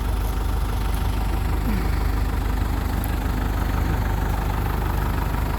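New Holland LB75 backhoe's diesel engine idling steadily and evenly, running smoothly with no sign of trouble.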